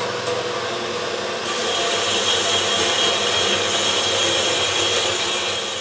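A power tool running steadily and cutting a piece of scrap stainless steel pipe, growing louder and brighter about a second and a half in as the cut bites.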